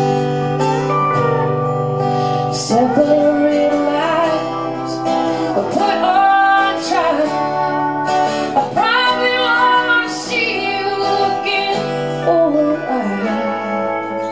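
Live music: a woman's voice singing long, sliding melodic lines over guitar accompaniment.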